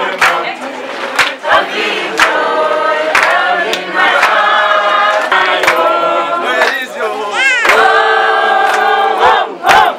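A group of voices singing a song together in chorus, holding long notes, with sharp hand claps through it and a rising wavering call about three quarters of the way in.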